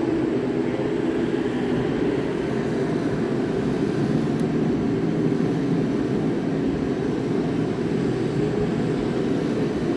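A steady, unchanging low mechanical drone from a running machine.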